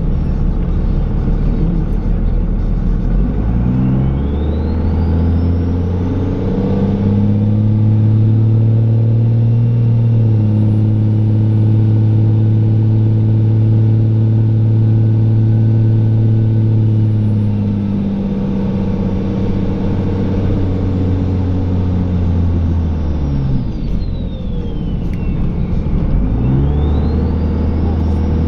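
Dodge Ram pickup's Cummins turbo-diesel engine revving up, holding high revs for about ten seconds, then dropping back and climbing again near the end, as the truck works a snow plow. A faint high whine climbs and falls with the engine.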